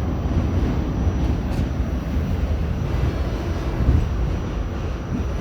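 New York City subway train running, a steady low rumble.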